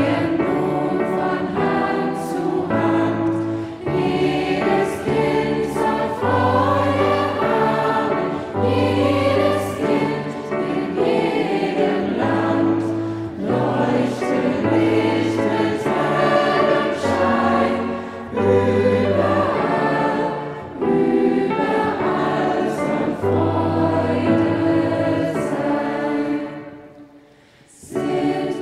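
A youth choir singing, with low sustained bass notes under the voices. Near the end the sound falls away briefly, then the singing comes back in.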